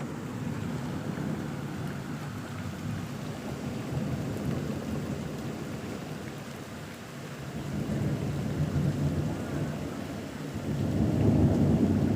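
Thunderstorm: steady rain with rolling thunder. A low rumble swells about eight seconds in, then a louder one builds from about ten and a half seconds.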